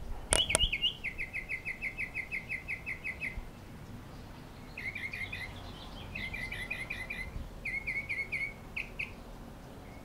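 A bird singing fast trills of short repeated chirps, several phrases with brief pauses between them. Two sharp clicks come about half a second in, just before the first trill.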